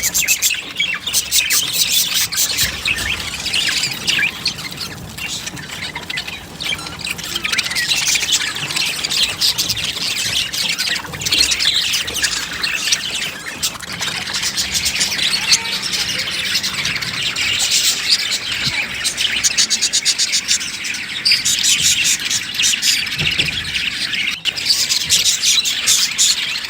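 Budgerigars chattering and chirping in a dense, unbroken stream of overlapping high calls.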